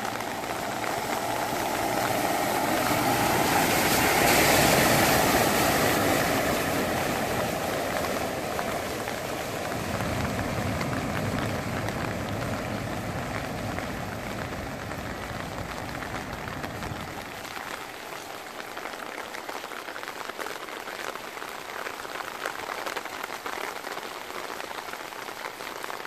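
Heavy typhoon rain pouring onto a flooded street, a dense steady hiss that swells louder about four seconds in and then eases off. A low rumble under it drops away about two-thirds of the way through.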